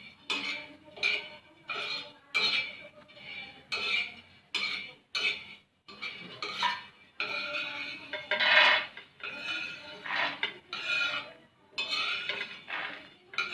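A metal spoon or spatula scraping and clinking against a pan in repeated strokes, about two a second, while fresh green toor dal (pigeon pea) beans are stirred and roasted.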